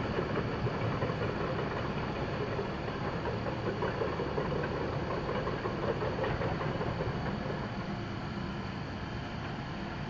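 Steady rumbling background noise with no distinct events, easing slightly near the end.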